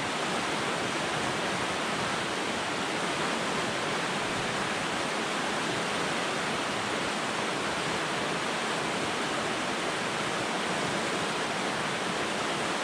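Shallow mountain river rushing steadily over a rocky bed.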